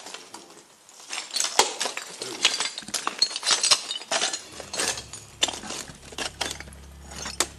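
A fast, irregular clatter of sharp clicks and clinks, starting about a second in and running to near the end. A low steady hum comes in about halfway.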